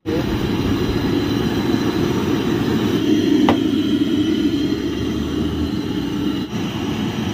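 Steady rushing noise of a roadside food stall, with gas burners running under the cooking pots and street traffic going by. A faint clink comes about three and a half seconds in.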